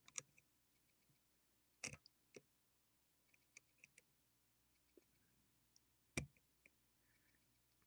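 Faint, scattered clicks and ticks from a soldering iron's tip working against a circuit board while desoldering surface-mount chip components, with a couple of sharper taps, about two seconds in and about six seconds in.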